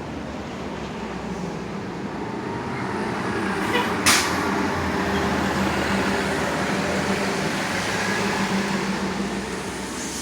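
A bus engine running close by, its hum building and then easing off as it goes past. A brief sharp sound comes about four seconds in.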